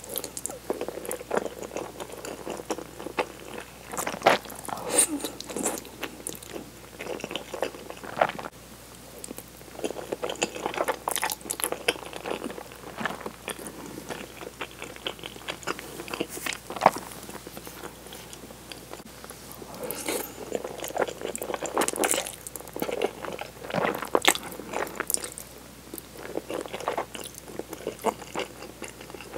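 Close-miked chewing and eating of tomato cream spaghetti: irregular mouth clicks and bites, quieter for a few seconds in the middle.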